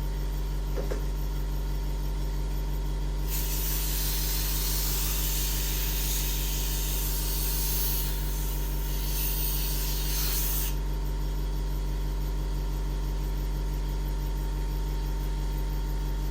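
DIY CNC milling machine running steadily with a constant motor hum and whine; for about seven seconds in the middle a harsh hissing, rasping cutting noise rises over it as the cutter mills the workpiece.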